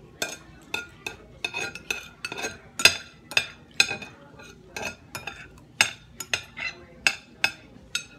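Metal spoon and fork clinking and scraping against a ceramic plate while scooping rice, in short sharp taps at about two or three a second, the loudest one about three seconds in.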